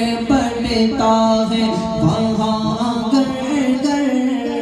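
Music from a manqabat, a Sufi devotional song: a man sings a drawn-out melodic phrase with no clear words, gliding between notes over a steady low drone.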